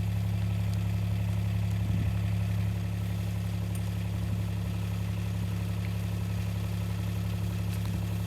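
Vehicle engine running steadily at a low, even pitch, with no change in speed.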